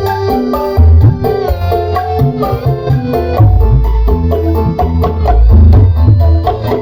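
Loud dangdut koplo-style music with hand-drum percussion and a melody, played through a 15-inch mini-scoop bass cabinet and 12-inch floor speakers in a sound test. The deep bass is strong throughout.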